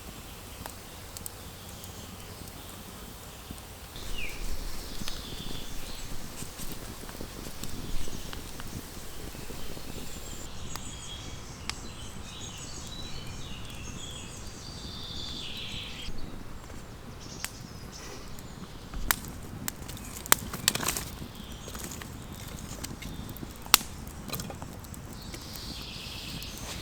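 Outdoor ambience with faint high chirps in the first half, then scattered sharp clicks and knocks, one standing out near the end.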